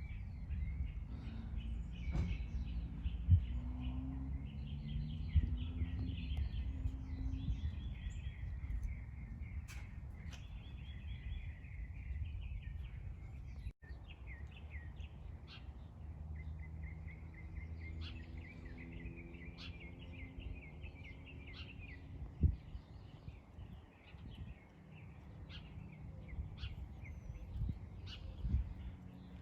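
Small birds chirping and twittering steadily over a low background rumble, with a faint low drone joining in the second half.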